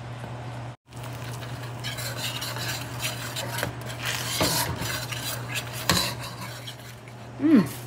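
Stainless steel ladle stirring and scraping red curry paste into sizzling coconut milk in a steel wok, the paste being fried in the coconut milk as the first stage of a Thai red curry. A steady low hum runs underneath, and a brief voice sound comes near the end.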